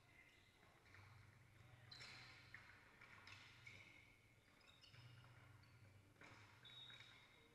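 Near silence: faint hall ambience with a low steady hum and a few distant faint knocks and short squeaks from play on the court.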